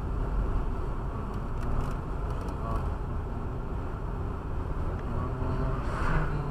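Steady low rumble of a car's engine and tyres heard from inside the cabin, driving at about 35 km/h. A short hiss comes near the end.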